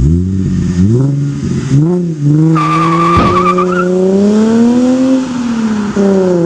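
Car engine sound effect revving up through the gears, its pitch climbing and dropping back at each shift about once a second, then a tire squeal for about a second before the engine runs on with a slow rise and fall in pitch.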